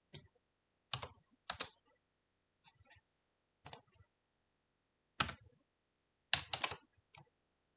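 Computer keyboard typing: irregular single keystrokes and short runs of two or three key presses, separated by pauses of up to a second and a half.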